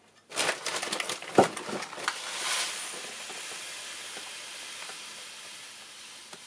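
Dry cat litter granules handled with a half-litre measuring jug: a few rattles and one sharp knock about a second and a half in, then a steady hissing pour of litter that slowly dies away.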